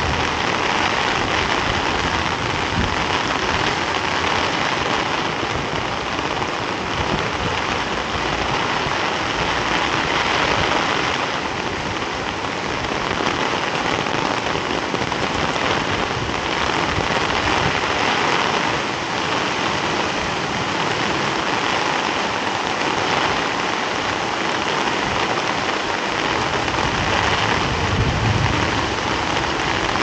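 Heavy rain pouring steadily, a dense even hiss of falling water.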